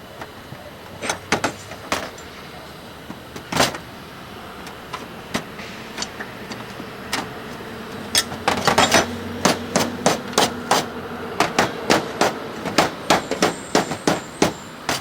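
Hammer blows on copper roofing: a few scattered strikes at first, then a steady run of about two or three strikes a second from about halfway in.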